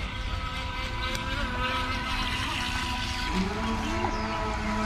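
Radio-controlled model boat's motor running as it crosses the pool, a steady whine whose pitch wavers, over a low rumble.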